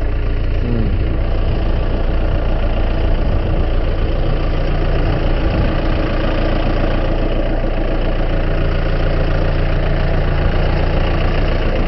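Landini farm tractor's diesel engine running steadily close by, at about idle speed.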